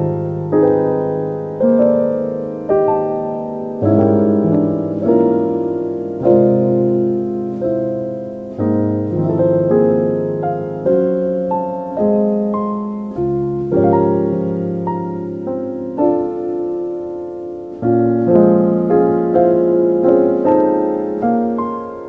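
Slow, gentle solo piano music: notes and chords struck about once a second, each dying away, with no steady beat.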